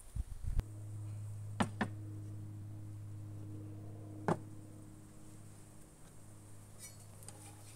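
A steady low buzz that starts about half a second in and fades slightly, with a few sharp clicks and ticks over it.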